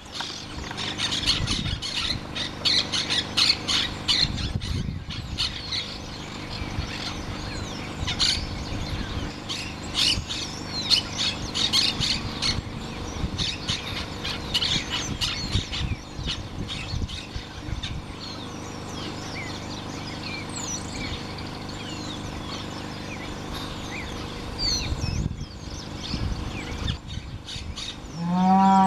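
Several birds chirping and calling outdoors, with many short, high chirps and quick pitch sweeps, busiest in the first half. Just before the end comes a brief, louder, low pitched call.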